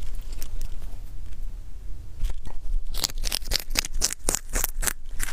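Rabbit chewing a baby carrot close to the microphone: faint scattered crunches at first, then about two seconds in a fast run of crisp crunching, about six a second, over a steady low hum.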